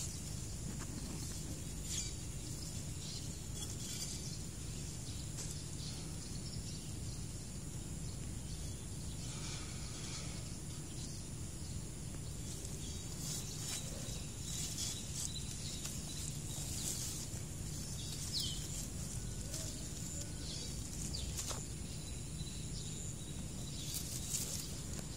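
Outdoor garden ambience: a steady high insect drone over a low rumble, with scattered rustles and clicks from a phone brushing through leaves.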